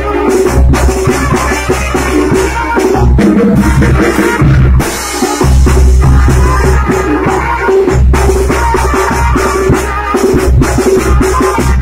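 Band music for a traditional dance: a bass drum beaten steadily with a wrapped mallet over sustained low brass notes.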